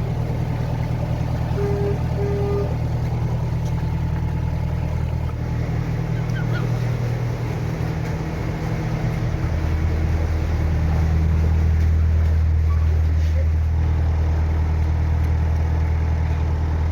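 Narrowboat engine running steadily under way. About ten seconds in, its note shifts and it gets a little louder.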